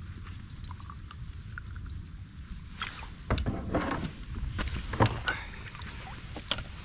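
A landed pickerel splashing and water pouring off it as it is lifted from the stream beside a kayak, with scattered sharp knocks and clicks of handling, the loudest about five seconds in.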